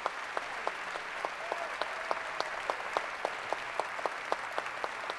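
Audience applauding, with one person clapping close to the microphone about three to four times a second.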